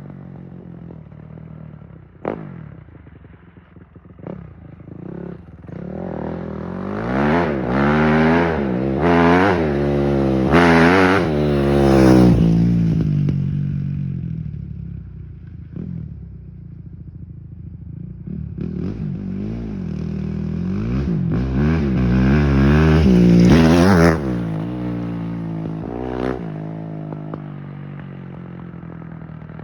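Vehicle engine revving hard in two bouts of several seconds each, its pitch swinging up and down repeatedly, with a few knocks before the first bout and a lower running sound in between.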